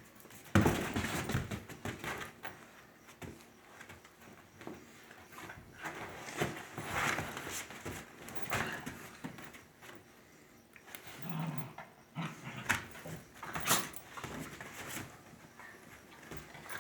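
Dogs growling and whimpering in short, irregular bursts, the loudest about half a second in.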